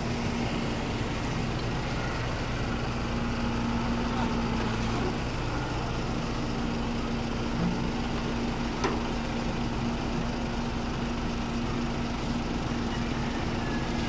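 Doosan DH55 mini excavator's diesel engine idling steadily, an even hum, with one brief click about nine seconds in.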